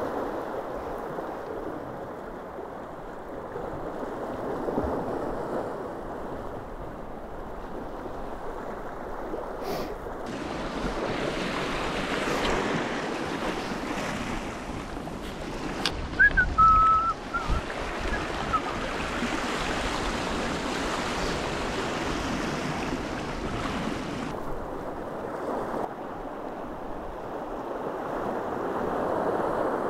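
Surf washing over rocks at the water's edge, swelling and ebbing, with wind on the microphone. About halfway through, a few loud knocks and a brief high squeak.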